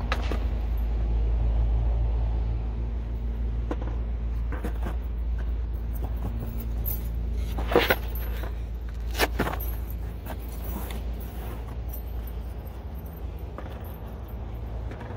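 Skateboard on concrete: the low rumble of the wheels rolling, broken by sharp clacks of the board hitting the ground during tricks, the loudest about eight seconds in and another about a second and a half later.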